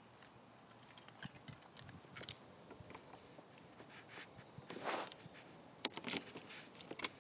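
A bunch of keys jingling, then small sharp clicks as a key is pushed into the scooter's ignition lock and turned, most of the clicks coming in a cluster about six to seven seconds in.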